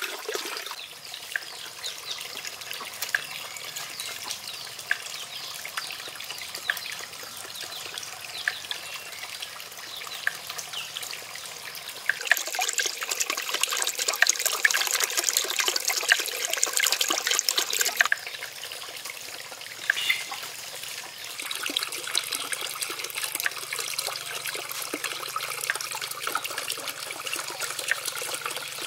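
Water trickling and dripping steadily into a shallow pond, with many small drip splashes. It grows louder for several seconds midway through, then drops back to a gentler trickle.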